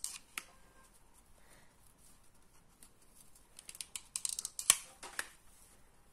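Cardboard tube pieces and paper handled on a cloth-covered table: faint light taps and rustles, with a busier cluster about four to five seconds in that holds one sharp tap.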